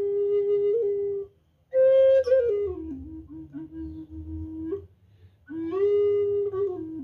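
A bamboo Native American-style flute with five finger holes plays a slow melody. It plays three phrases of long held notes that step down in pitch, with short pauses for breath about a second and a half in and again about five seconds in.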